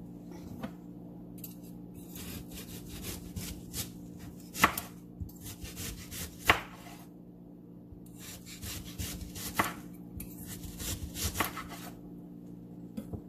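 Chef's knife slicing through an onion and tapping a wooden cutting board, in two runs of quick strokes with a short pause in the middle and a few louder knocks of the blade on the board.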